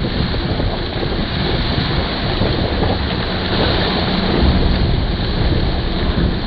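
Steady rush of water spraying off a boat's hull as it runs at speed, with heavy wind buffeting the microphone.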